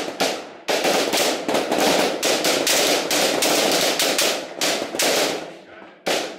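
Many rifles firing together on a firing line: a rapid, uneven, overlapping crackle of shots that thins out near the end to a few single shots.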